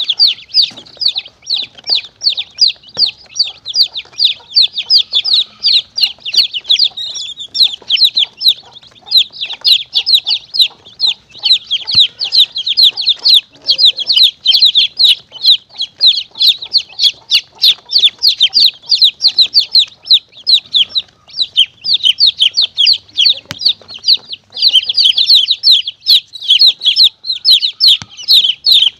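Baby chicks peeping rapidly and without a break in high, shrill calls, several a second and overlapping. It is a chick-call recording used as a lure to draw monitor lizards and mongooses.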